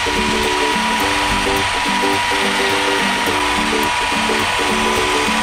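Rotary hammer drill running steadily with a steel bolt spinning in its chuck while a hand file rasps against it, a steady motor whine with a grinding hiss. A stepping melody of background music runs under it.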